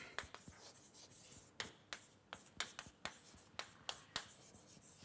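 Faint chalk writing on a chalkboard: a dozen or so irregular light taps and short scrapes as letters are written.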